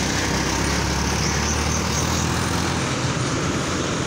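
A car driving steadily along a road: constant engine hum and tyre and road noise.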